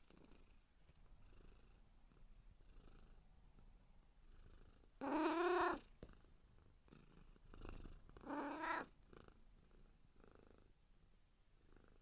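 Domestic cat meowing twice, about three seconds apart, each call under a second long.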